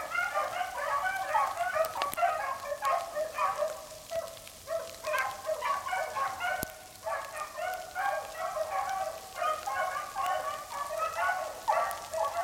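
A pack of beagles baying as they run a rabbit's track, many voices overlapping in a continuous chorus that thins briefly around four and again around seven seconds in.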